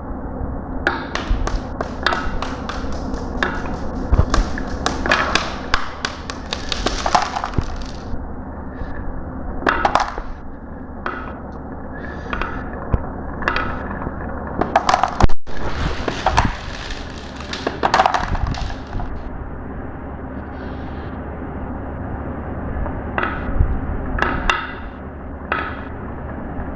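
Glass marbles rolling and clattering down a marble-run track: rapid irregular clicks and knocks in clusters, with a sharp loud knock about halfway through, over a steady low hum.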